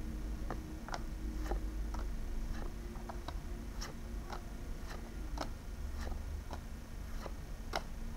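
Light, uneven clicks of Pokémon trading cards being handled and flipped one at a time, roughly two a second.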